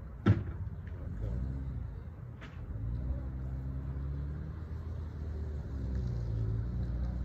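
Passing cars: a low engine-and-tyre rumble that swells twice. A sharp knock comes about a third of a second in, the loudest moment, with a fainter one about two seconds later.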